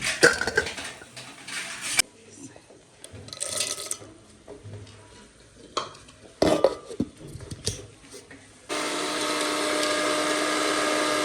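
Kitchen utensils and dishes clattering with a few sharp knocks, then, near the end, an electric mixer grinder switches on abruptly and runs with a steady loud whir, grinding roasted sesame seeds and peanuts.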